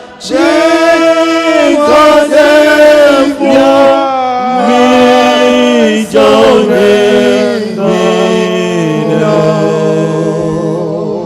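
Church congregation singing a slow hymn, several held notes, closing on a long held chord that fades out near the end.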